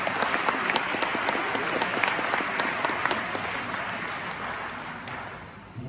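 Audience clapping after a song, the applause thinning and dying away near the end.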